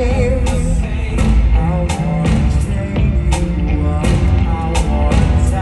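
Loud rock music with a steady drum beat and bass for a stage show, with a wavering sung note trailing off at the start.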